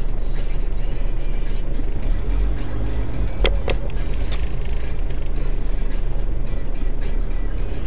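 Steady low rumble of a car's engine and road noise heard inside the cabin through a dashcam microphone, in slow stop-and-go traffic. Two sharp clicks come close together about three and a half seconds in.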